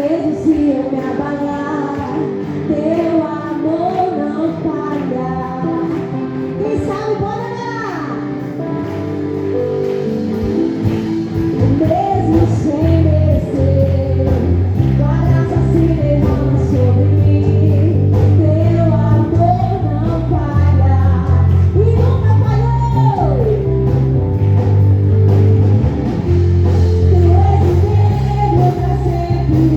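Lively gospel praise music played live by a worship band, with a sung melody over guitar. A heavy bass comes in about ten seconds in and the music gets louder.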